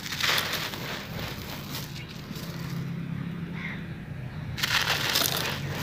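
Chunks of dry sand-cement crumbled and broken in the hands: gritty crunching and grains falling, loudest just after the start and again about five seconds in. A steady low hum runs underneath.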